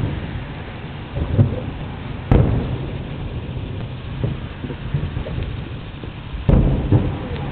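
Aerial fireworks shells bursting: a handful of deep booms, the biggest about two seconds in and another near the end, each trailing off into a low rumble.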